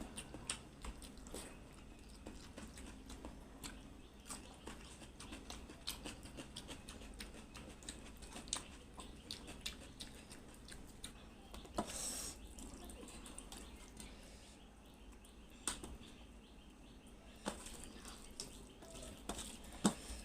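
Close-up wet eating sounds: irregular smacking, clicking and chewing of a mouthful of rice and egg curry with gravy, with a louder squelchy smack about twelve seconds in.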